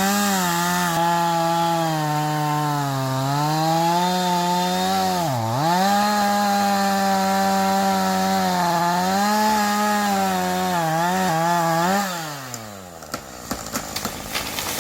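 Gasoline chainsaw cutting into a large old oak, its engine pitch sagging and recovering under load, with a deep dip about five and a half seconds in. About twelve seconds in the throttle is let off and the engine winds down, followed by a scatter of sharp cracks and knocks.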